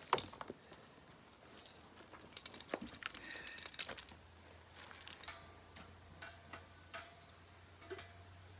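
Light clicks and clatter of small objects being handled, with a rattling run of clicks about two and a half to four seconds in, over a faint steady hum.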